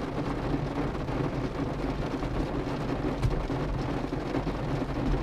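Heavy rain falling on a car's roof and windows, heard from inside the cabin: a steady, dense patter over a low rumble, from a horrendous rainstorm.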